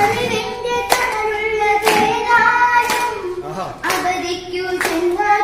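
Children singing a song together, with hand claps keeping a beat about once a second.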